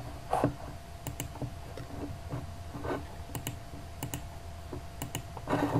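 Computer keyboard being typed on, a handful of separate keystroke clicks spread over a few seconds, over a steady low hum.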